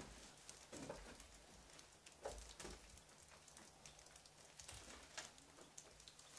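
Near silence with a few faint, scattered knocks and taps: footsteps on a wooden floor littered with debris.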